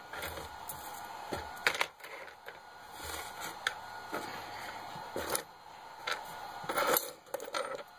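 Scattered light clicks and knocks of small RC shock parts (Traxxas Big Bore shock bodies, springs and caps) being handled, tapped together and set down on a workbench, with a few louder knocks among them.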